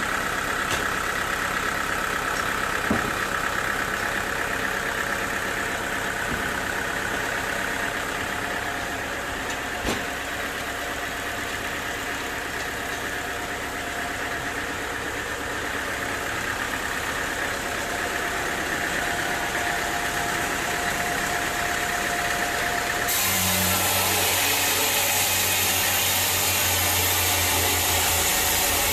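Sawmill machinery running steadily, with a few sharp knocks. About 23 seconds in the sound switches abruptly to a louder, steadier machine hum.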